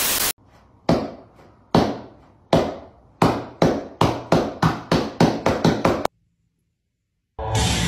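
A short burst of static-like noise, then a series of sharp knocks, each with a short ringing tail, coming faster and faster and stopping suddenly about six seconds in.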